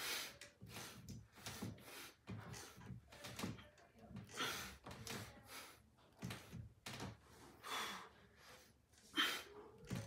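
A man breathing hard with effort while exercising: short, sharp breaths in and out, about two a second, with an occasional gasp.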